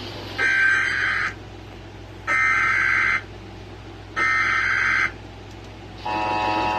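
Emergency Alert System SAME header: three identical bursts of warbling data tones, each just under a second long with about a second between them. Near the end the steady two-tone EAS attention signal begins.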